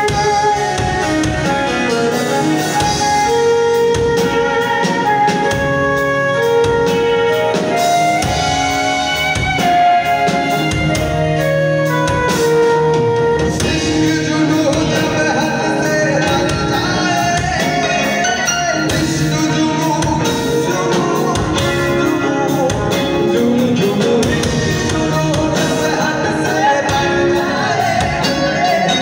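Live band playing a song with singing, over a Korg keyboard, guitar and a drum kit.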